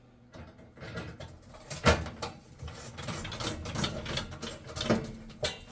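Scattered knocks and clicks of metal parts being handled while screws are started by hand with a screwdriver in an oven's burner cover, the sharpest knock about two seconds in.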